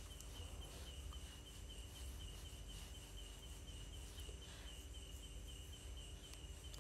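Quiet room tone with a faint, steady high-pitched pulsing chirp, repeating evenly throughout, over a low hum.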